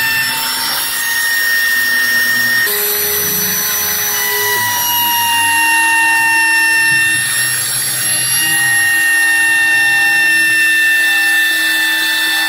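Homemade CNC router running, its motors whining at several pitches at once. The tones hold, then step or slide to new pitches every few seconds as the machine changes speed.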